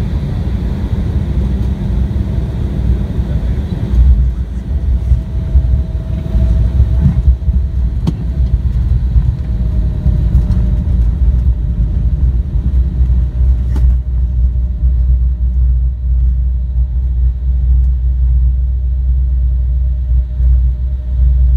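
Cabin noise of an Embraer 175 jet rolling along the ground after landing: a loud, continuous low rumble, with a few faint knocks and a faint steady whine. The higher roar thins about four seconds in and fades further about fourteen seconds in as the jet slows.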